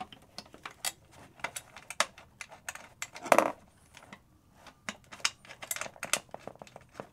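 Irregular small metallic clicks and taps as bolts are fitted by hand through a wheelchair's metal armrest frame into a padded armrest, with one louder knock about three and a half seconds in.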